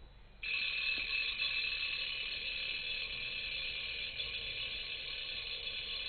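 A small vibration motor buzzing against an mbira's metal tines, rattling them so they ring with several steady tones at once. It starts abruptly about half a second in and keeps going steadily.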